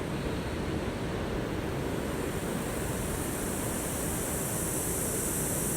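Ocean surf, a steady rush of waves washing on the shore, with a high steady hiss that grows about two seconds in.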